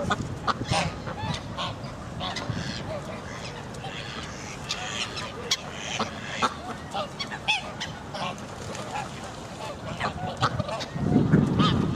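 Geese honking and ducks calling together, many short overlapping calls. A louder low rumble comes in near the end.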